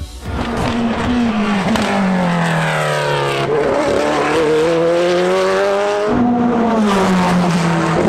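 Corvette C8.R race car's flat-plane-crank V8 running hard at high revs on track. Its pitch falls over the first few seconds, then rises gently, and changes suddenly about six seconds in.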